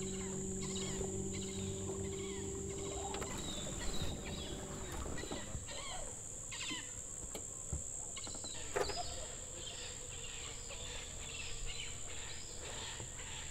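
Steady high-pitched drone of cicadas from the bush on the shore, with scattered short bird calls over it. A low steady hum fades out after about three seconds, and a few faint clicks sound along the way.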